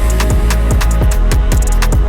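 Loud electronic drum-and-bass music with a fast, steady beat and heavy bass.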